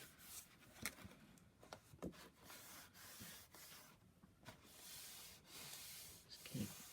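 Faint rubbing and handling of cardstock as glued paper pieces are pressed together to help the glue grip, with a few light clicks.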